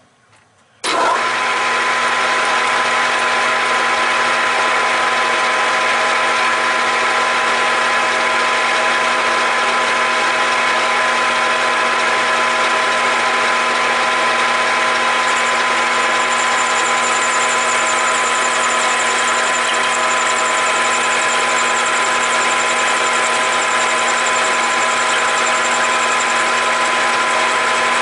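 Grizzly G4003G gear-head metal lathe starting up about a second in and then running steadily at about 600 RPM, with a steady gear whine of several constant tones. A 3/16-inch corner-rounding end mill cuts a radius on the end of a spinning brass rod, and a faint high-pitched tone joins about halfway through.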